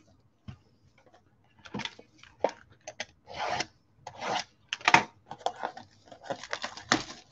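A shrink-wrapped cardboard trading-card blaster box being slit and torn open by hand: a string of short crinkling, scraping rasps and sharp clicks that starts about a second and a half in.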